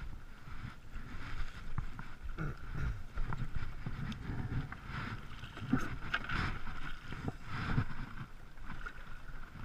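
Irregular knocks and bumps aboard a fishing boat, over a faint steady whine.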